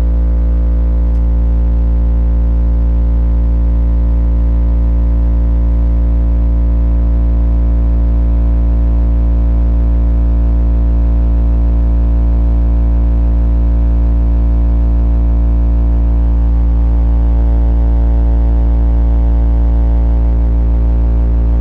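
Two Bomber Bicho Papao 15-inch subwoofers in a dual slot-ported box playing a 57 Hz test tone: a loud, steady, deep hum with a stack of overtones above it. The amplifier is being pushed toward clipping to find the subwoofers' limit.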